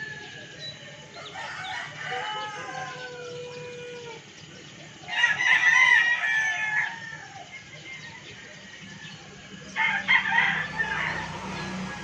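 Roosters crowing: a fainter crow about a second in, then two loud crows, one about five seconds in and one near ten seconds.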